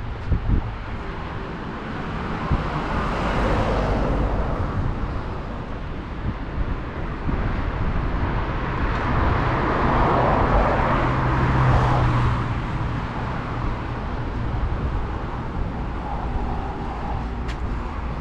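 Road traffic passing close by: a steady rush of vehicles, with one swelling past about three to four seconds in and a louder, longer pass about ten to twelve seconds in carrying a low engine hum.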